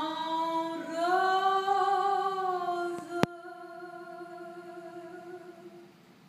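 A woman's singing voice holds one long, steady final note of the song. It grows softer after about three seconds and fades out near the end. A single sharp click sounds about three seconds in.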